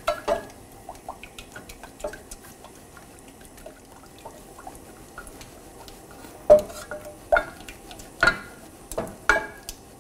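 Wooden spoon stirring a thick rice-flour paste in a stainless steel saucepan, with soft scrapes and clicks. In the second half come about five sharper knocks of the spoon against the pan.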